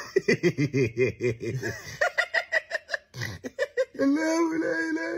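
A man's quick, stifled laughter in short rapid bursts. About four seconds in it gives way to one long, steady, held vocal note.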